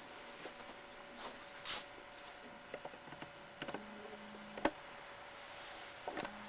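Quiet room tone with scattered small clicks and taps, the sharpest about two thirds of the way in. A low buzz comes on for about a second in the middle and again near the end.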